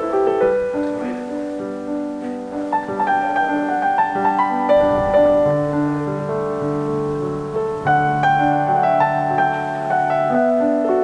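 Background piano music: a slow, gentle melody of single notes over held chords.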